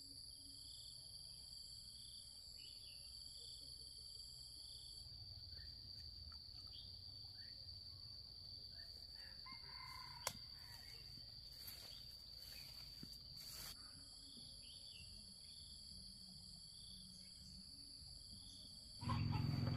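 Faint countryside ambience: a steady high insect drone with soft chirps repeating under it, and a faint rooster crowing around the middle. A single sharp click comes about ten seconds in, and a louder sound cuts in just before the end.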